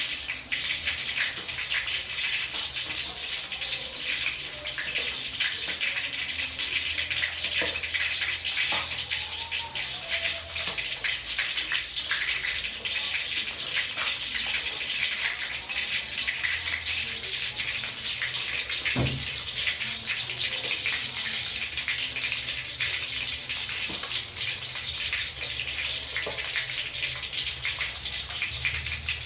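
Hot oil sizzling steadily with fine crackles around a whole fish and garlic cloves shallow-frying in a pan. A single low knock sounds about two-thirds of the way through.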